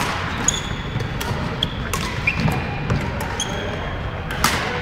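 Badminton rally: several sharp racket strikes on the shuttlecock, under a second apart, mixed with short high squeaks of court shoes on the wooden floor.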